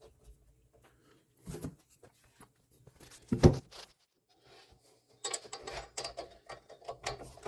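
Miter saw blade parts being fitted and the arbor bolt turned with an Allen wrench: a soft knock, a loud metal clunk, then a run of quick clicks and rattles. The spindle lock button is not fully pushed in, so the arbor turns with the wrench instead of tightening.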